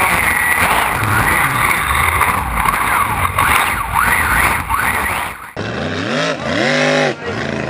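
Onboard a racing powerboat at speed: a loud rush of wind and water spray with the engine beneath it. About five and a half seconds in, the sound cuts to a race boat's engine heard from the bank, its pitch rising and falling twice.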